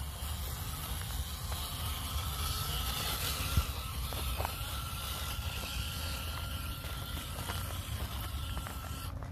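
Small electric motor and drivetrain of a Hobby Plus CR-18 1/18-scale RC crawler whining steadily as the truck drives over the trail, over a low rumble. There is one sharp knock about three and a half seconds in.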